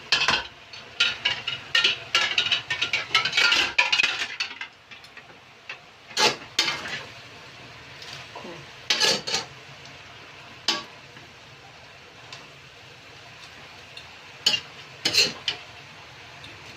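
A cooking utensil clinking and scraping against a pan as vegetables are stirred, in a busy run for the first four seconds, then a few separate clinks.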